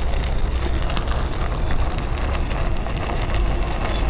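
Wind buffeting the microphone over the rumble of a Kukirin G2 Master electric scooter riding on the road: a steady rushing noise with a heavy low rumble and a few faint clicks.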